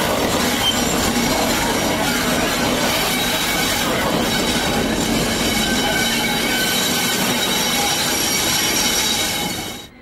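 Class 73 electro-diesel locomotives rolling slowly round a tight curve, their wheels squealing in steady high tones over the rumble of the running gear. The sound cuts off suddenly near the end.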